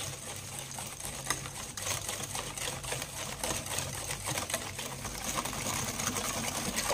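Wire whisk beating egg yolks, corn syrup and sugar in a stainless steel bowl: rapid, steady clicking of the wires against the metal.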